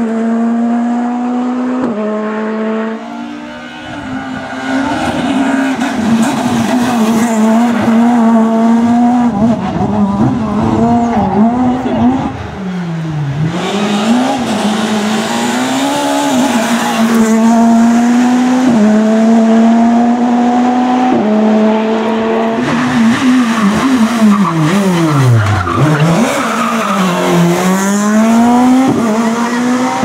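Škoda Fabia S2000 rally car's naturally aspirated 2.0-litre four-cylinder engine driven hard at high revs, its note stepping through quick gear changes and sweeping sharply down in pitch twice as the car passes close by.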